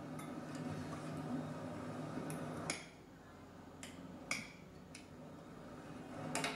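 About half a dozen sharp clicks at uneven intervals over a steady low hum.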